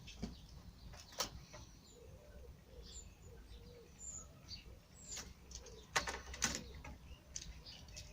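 Faint bird calls: a low, wavering cooing and a few short high chirps. Sharp knocks cut in about a second in and twice around six seconds in.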